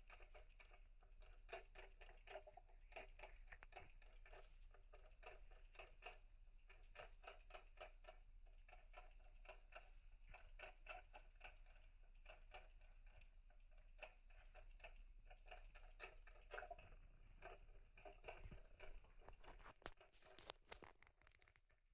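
Faint, rapid, irregular clicks and soft rasps from cats right up against the microphone.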